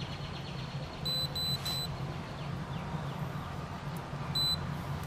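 Three short high beeps in quick succession about a second in, then a single beep near the end, over a steady low hum.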